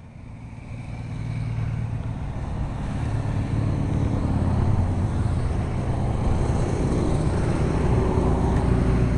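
Motorcycles passing in a stream on a dual carriageway, a low engine rumble that builds over the first few seconds and then holds steady.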